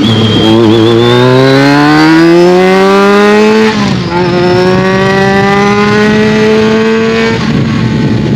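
BMW K1200S inline-four with a Delkevic aftermarket exhaust, accelerating: the engine note climbs steadily, drops sharply about four seconds in at a gear change, then climbs again more slowly before the throttle eases near the end. It is heard from a phone in the rider's pocket.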